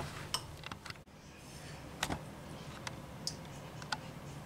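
Faint, scattered light clicks and taps of kitchen handling, about eight of them at uneven intervals, the sharpest about two seconds in.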